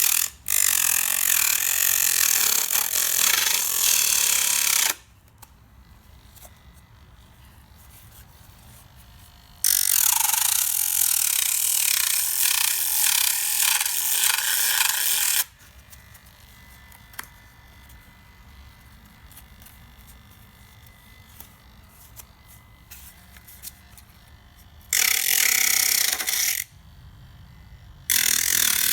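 Homemade angle grinder, a small battery-powered motor spinning an olive-can-lid cutting wheel, switched on and off in four runs of a few seconds each with a high-pitched whirring, grinding noise. It runs on a single 9-volt battery and is underpowered.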